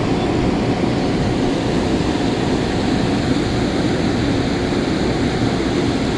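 Steady rushing of water at a dam, an even unbroken roar with no separate events.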